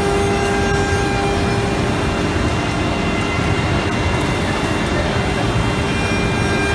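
CNC router with automatic tool change running its spindle and routing grooves into a wooden door panel: a loud, steady machining noise with a constant tone held through it.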